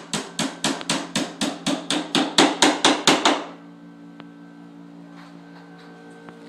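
Rapid, evenly spaced hammer blows, about four a second, that stop about three seconds in.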